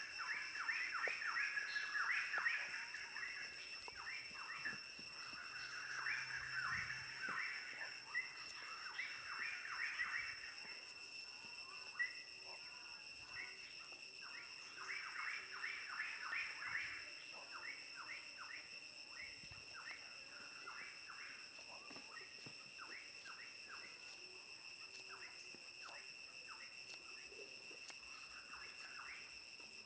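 A steady high-pitched insect drone, with birds chirping in quick bursts that are densest in the first half and thin out later.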